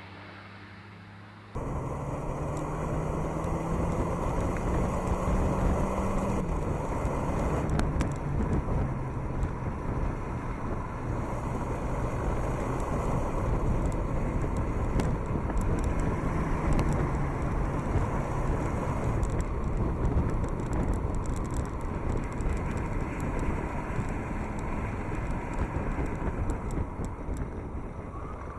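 Alpine A110S sports car running at speed on a track, its turbocharged 1.8-litre four-cylinder engine note climbing and then stepping down, as at a gear change, under a steady rush of wind and road noise from a camera car driving ahead of it. The first second and a half is quieter, then the sound jumps up at once.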